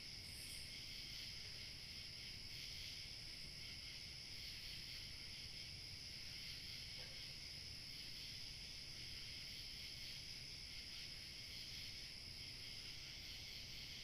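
Night insect chorus of crickets, trilling steadily and without a break, with a thin, high continuous whine above it and a faint low rumble beneath.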